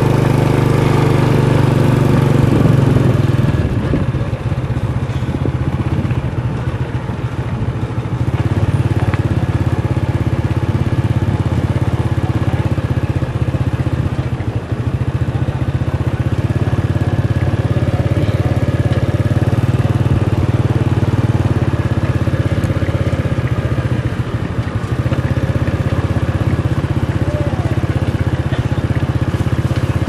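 Vehicle engine running steadily as a low drone, with a shift in its tone about three and a half seconds in.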